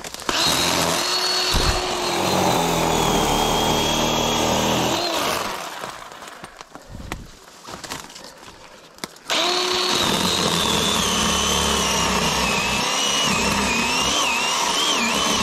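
Small battery-powered chainsaw running in two long bursts with a short pause between, its high motor whine wavering and dipping during the second burst.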